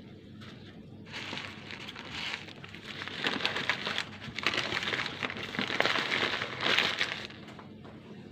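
Paper burger wrapper being crumpled into a ball by hand: a crackling that starts about a second in and stops about seven seconds in.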